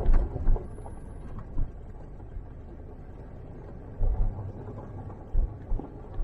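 Car driving slowly along a rough dirt forest track: a steady low rumble with several dull thumps.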